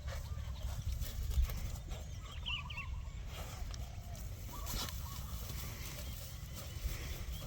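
Steady low wind rumble on the microphone, with a few short wavering calls from a bird, probably farmyard fowl: a cluster about two seconds in and another near five seconds.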